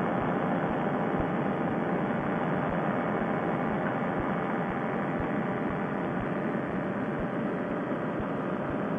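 Paramotor trike's engine and propeller running steadily in cruise flight, an even drone with no change in speed, heard over a Bluetooth headset microphone that cuts off the high end.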